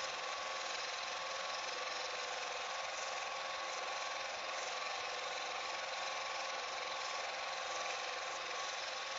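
Film projector running steadily, its motor and film transport making an even mechanical whirr with a constant high hum.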